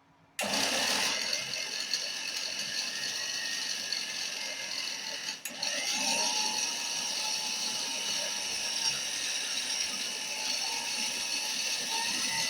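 Mixer grinder motor switched on about half a second in, its blades grinding sorghum (jowar) grain into flour in a large steel jar, running on a low supply voltage of about 110 V. The noise dips briefly about five and a half seconds in, then carries on steadily.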